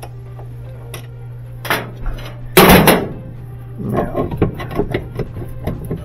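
Hand tools and metal washer parts clanking during disassembly. A loud clatter comes about two and a half seconds in, followed by a run of lighter irregular clicks and knocks over a steady low hum.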